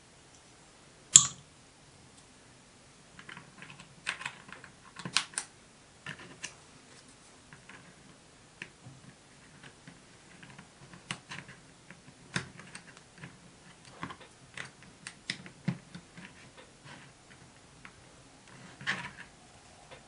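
Small, irregular clicks and taps of 3D-printed PLA plastic parts being handled and pressed together on a work mat, with one sharp click about a second in.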